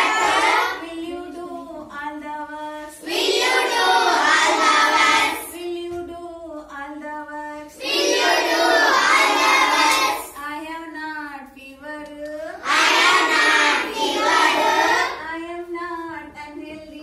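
A group of young children singing an action rhyme in call-and-response with a woman. Her single voice sings a line, then the children answer together more loudly, about four times over.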